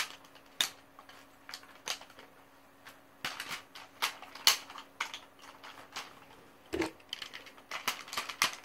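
Hard plastic toy parts of a Shogun MegaFalconzord figure clicking and snapping as pieces are handled and fitted together: a string of irregular sharp clicks, some louder than others.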